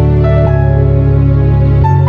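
Background music: slow, sustained new-age style music with a strong held bass that shifts note about half a second in and again near the end.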